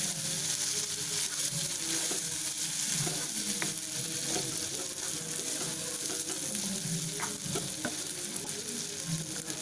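Peas, tomatoes and onion masala sizzling in oil in a non-stick pan, with a steady frying hiss. A wooden spatula stirs them in repeated strokes against the pan.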